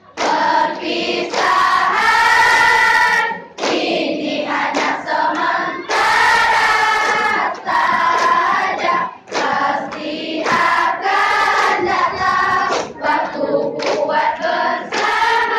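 A group of girls singing a nasyid (Islamic devotional song) together, in phrases with long held notes and short pauses for breath.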